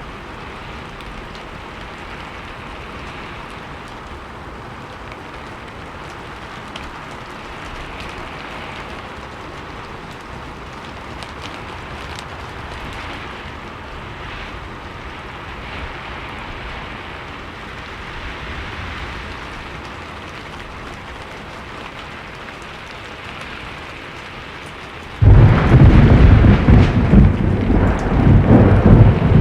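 Steady rainfall hissing evenly. Near the end a sudden, very loud crash of thunder breaks in and rumbles on heavily.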